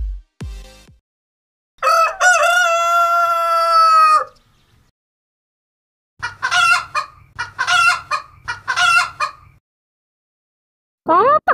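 A rooster crows once, a long cock-a-doodle-doo held about two seconds. A few seconds later chickens cluck in a run of short calls over a low hum, and near the end a fowl starts a fast series of rising calls.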